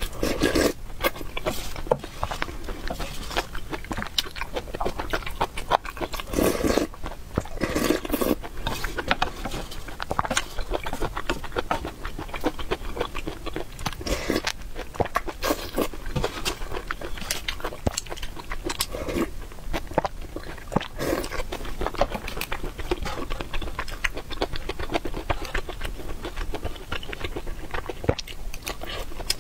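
Close-miked eating: slurping spicy broth from a ceramic spoon and chewing soft, chewy pieces of meat, with many small wet clicks and a few louder slurps.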